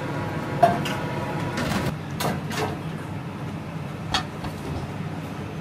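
A few scattered clicks and knocks, like utensils or a drawer being handled, over a steady background hum.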